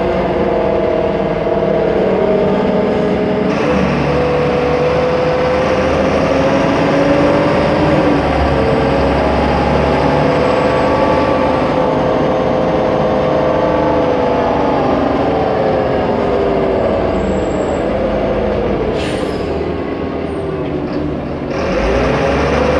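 Solaris Urbino 15 city bus heard from on board while driving: its engine and drivetrain run with several pitched tones that slide up and down as it speeds up and slows. Near the end the sound eases briefly with a short hiss of air, then the bus pulls away again.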